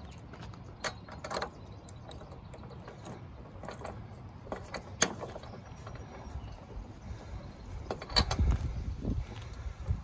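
Hands and tools working on a Lawn-Boy mower's engine: a few light clicks, a single sharp click about halfway, then a handful of louder knocks and thuds near the end as the spark plug boot is pushed onto the plug.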